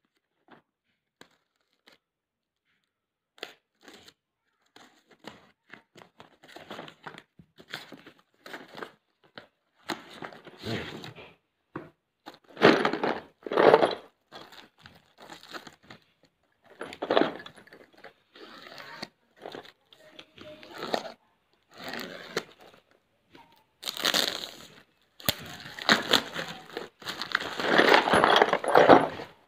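Packaging being torn and crinkled open by hand, in irregular bursts that grow busier and louder toward the end.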